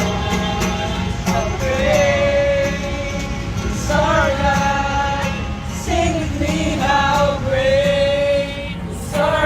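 Voices singing a Christian worship song in chorus over instrumental accompaniment, holding long notes.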